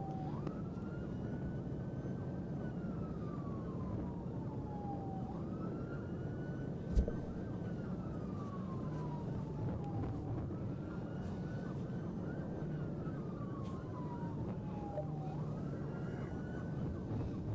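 Police car siren on a slow wail, rising quickly and falling slowly about every five seconds, heard from inside the pursuing patrol car over steady road noise. A single knock comes about seven seconds in.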